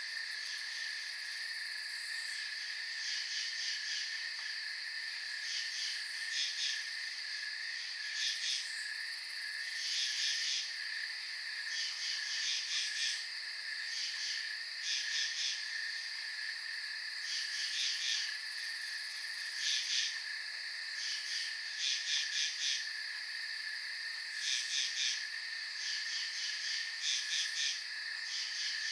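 Night insect chorus in a field: a steady high trill of crickets, with a nearer insect chirping in short pulsed bursts every second or two.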